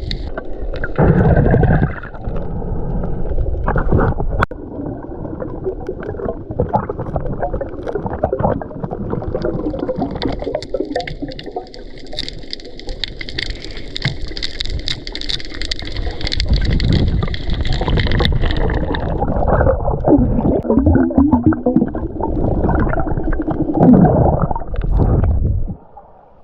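Seawater gurgling and sloshing around the camera as a diver swims and dives, loud and uneven, with a higher hiss through the middle stretch.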